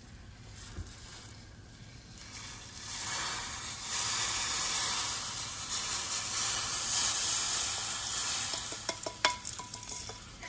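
Toasted rice pouring off a stainless steel skillet into a pan of hot tomato liquid, setting off a loud, steady sizzling hiss from about three seconds in. Near the end come a few sharp knocks and scrapes of the wooden spoon against the metal pans.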